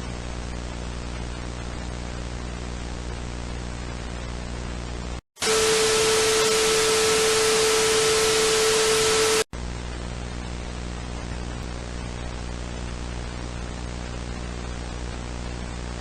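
Steady static hiss with a low hum. About five seconds in it cuts out for a moment and gives way to a much louder burst of static carrying a steady tone, which lasts about four seconds before the quieter static and hum come back.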